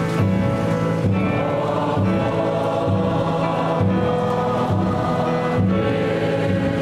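A church congregation singing a hymn together, holding long notes that change about once a second.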